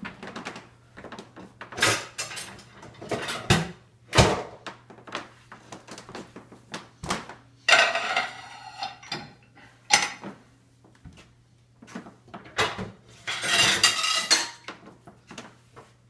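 Plates clattering against each other and the wire rack as they are set upright in a dishwasher's lower rack. Irregular knocks and clinks, with longer clattering stretches about eight seconds in and near the end.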